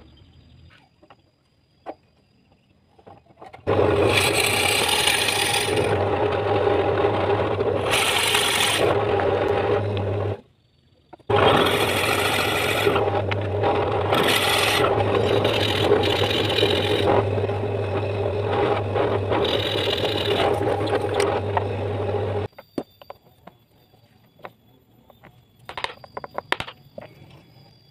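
Electric drill running a 16 mm spade bit into a small hardwood block: a steady motor hum with the rasp of the bit cutting wood over it. It runs about six seconds, stops for about a second, then runs again for about eleven seconds before stopping, followed by a few faint knocks near the end.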